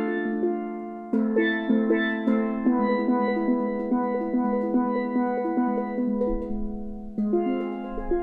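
Steelpans struck with mallets, playing quick melodic runs of ringing notes, with brief breaks in the phrase about a second in and again near the end.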